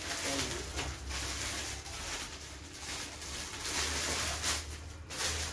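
Clear plastic wrapping crinkling and rustling as it is handled and pulled off a new purse.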